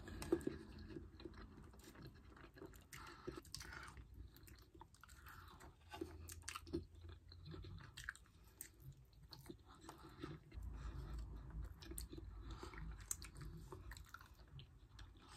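Faint chewing and biting: a person eating a roasted chicken thigh off the bone by hand, with scattered small clicks and smacks of the mouth.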